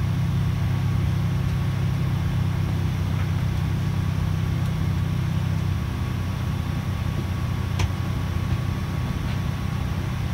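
Cabin noise of a Boeing 747-400 taxiing: a steady low hum from its Rolls-Royce engines at idle, with a faint steady whine above it. A light click about eight seconds in.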